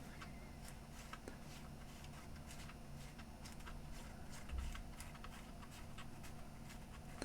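Faint workbench handling noises: scattered light clicks and taps over a steady low electrical hum, with one soft low bump about four and a half seconds in.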